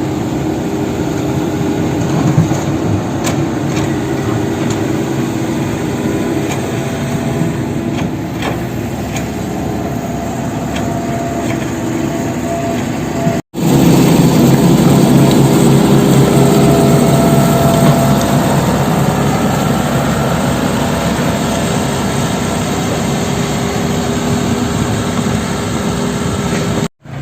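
Sumitomo SH75 mini excavator's diesel engine running steadily, with a few short knocks in the first half. The sound cuts off abruptly about halfway through and comes back louder.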